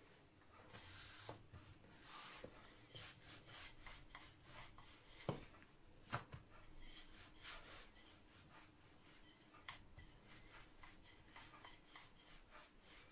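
Faint rubbing of a wooden rolling pin rolled lightly back and forth over pita dough on a floured countertop, with a few light knocks as the dough is lifted and turned.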